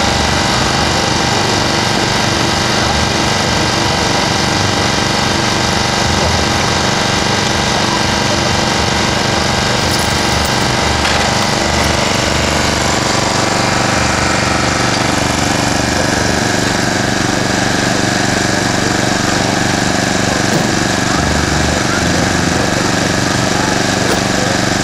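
A small engine running steadily at constant speed, with a quick low pulsing.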